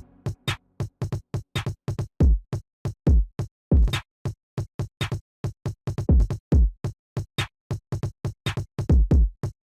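Electronic background music made of a drum-machine beat: deep kick thumps and quick short hits in a fast, broken rhythm.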